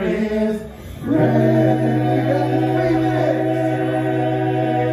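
Five-man barbershop a cappella group singing in close harmony: a short phrase, a brief break about a second in, then one long chord held steady.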